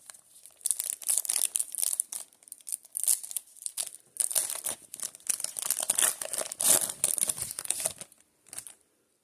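Foil wrapper of a Panini Prizm football card pack being torn open and crinkled, an irregular crackling rustle that stops near the end with one short last rustle.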